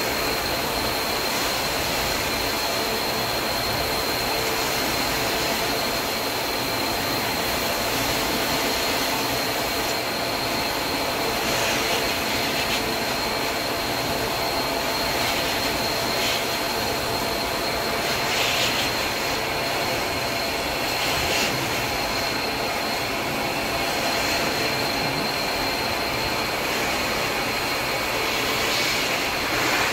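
Carpet extraction machine running steadily: a loud rush of vacuum suction with a steady high whine. A few brief louder rushes of higher-pitched noise break in now and then.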